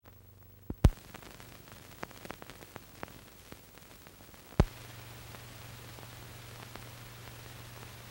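Hiss and crackle of an old film soundtrack, with a few sharp pops, the loudest just under a second in and about halfway through. A steady low hum comes in with the second loud pop.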